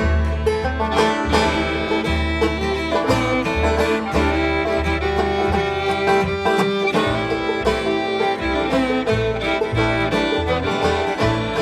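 A bluegrass band playing an instrumental passage, with fast picked banjo and fiddle over guitar and steady low bass notes.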